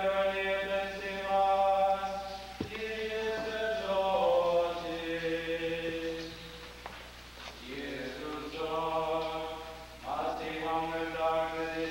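Slow unaccompanied chanted singing: long held notes in phrases, with short breaks between phrases about two and a half, seven and a half and ten seconds in. A single sharp click about two and a half seconds in.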